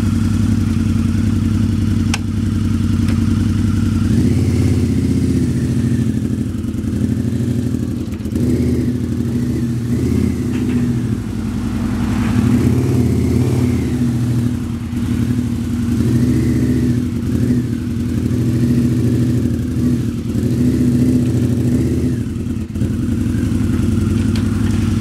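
Harley-Davidson V-Rod's V-twin engine running throughout, its note rising and falling from a few seconds in until near the end as the bike is ridden up a loading ramp and then eased back down it with the clutch used as a brake, then settling back to a steady idle.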